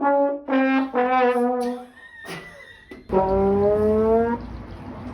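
Brass-type horn blown in loud, held blasts: three short notes in quick succession, then after a pause a longer note that slides upward in pitch.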